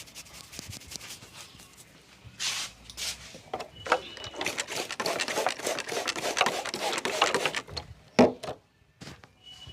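A barber's hands working a client's head and hair in a massage: a dense run of rapid crackling clicks for about five seconds, then one sharp crack just after.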